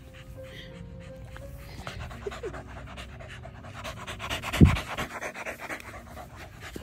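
A corgi panting close by, with one loud, short low thump about two-thirds of the way through.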